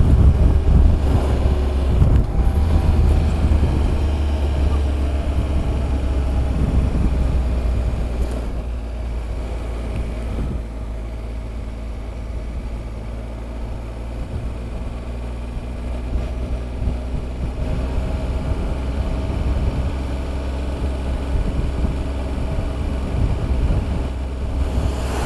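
Motorcycle engine running at low road speed with wind noise on the microphone, a steady low hum that eases off in the middle and picks up again near the end.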